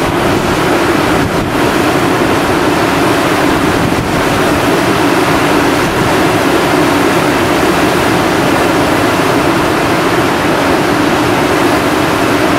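Flash-flood torrent of muddy, debris-laden water rushing down a creek channel: a loud, steady rush with no let-up.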